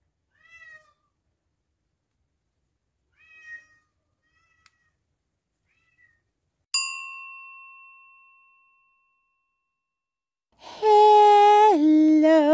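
A few short, faint cat meows, then a single bell-like ding that rings out for over a second. About two seconds before the end a loud, long vocal call begins; it holds one pitch, steps down, then wavers.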